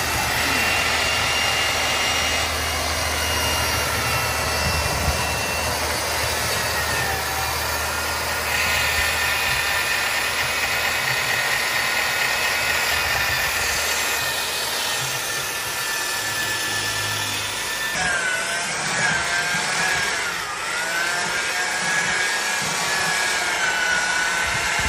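An electric power tool running steadily under load, with a whine that wavers in pitch. The sound shifts abruptly about eighteen seconds in.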